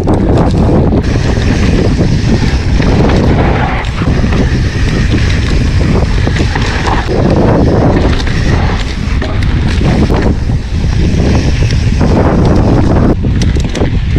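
Wind rushing over an action camera's microphone as a mountain bike rolls fast down dry dirt singletrack, with steady tyre noise and frequent clatter and knocks from the bike over bumps.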